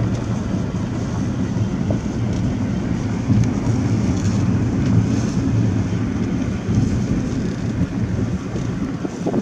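Inside a moving vehicle: steady low road and engine rumble while driving along.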